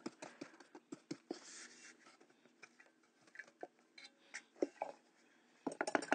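Light handling sounds: scattered small taps and clicks of a plastic measuring cup and a cardboard baking soda box, with a quick flurry of clicks and rustling near the end as baking soda is shaken from the box.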